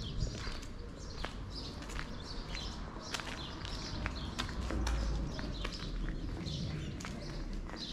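Footsteps on a village street with small birds chirping, and a low rumble that swells briefly about five seconds in.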